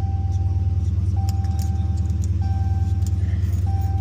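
SRT 392's 6.4-litre HEMI V8 idling steadily just after starting, with a deep pulsing rumble. A single-tone warning chime in the car sounds four times over it, about once a second.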